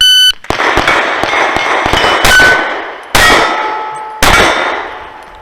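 A shot-timer beep starts the string, then pistol shots in quick succession, with steel targets clanging and ringing as they are hit. Two more single shots follow, about a second apart, and each leaves a steel plate ringing.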